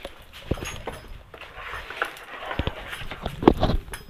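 Irregular metallic clicks and knocks of hand tools and steel bolts handled against an aluminium motorcycle engine crankcase during bolt-by-bolt reassembly. The loudest knocks come about half a second in and again near the end.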